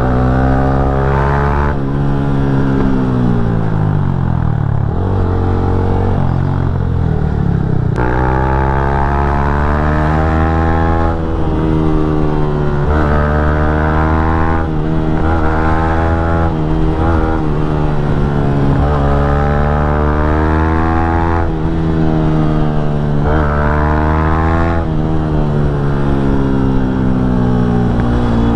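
Yamaha MT-15's 155 cc single-cylinder engine under way. Its pitch falls for a few seconds early on as the bike slows, then repeatedly climbs and drops back as the rider accelerates and shifts up through the gears.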